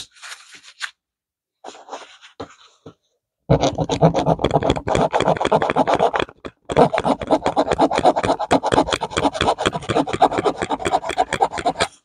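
The metal file blade of a multi-tool rasping rapidly back and forth across the edge of a counterfeit silver coin, starting about three and a half seconds in, with a brief break near the middle. Before that there are a few short scrapes of the coin and tool being handled.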